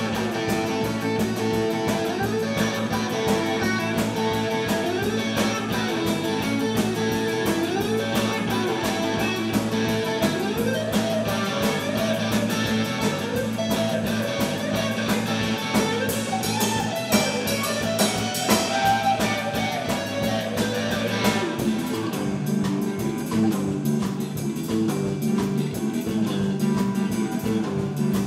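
Live rock band playing an instrumental passage: electric guitar lines over bass guitar and a drum kit. About three quarters of the way through, the playing thins out and the drums drop back, leaving a repeating guitar and bass figure.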